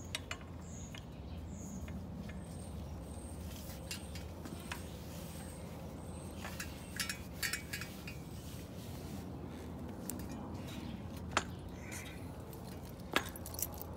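A few sharp clicks and clinks as the motorcycle exhaust header and its heat wrap are handled during wrapping, over a steady low hum. A faint high-pitched chirp repeats about twice a second for several seconds in the first half.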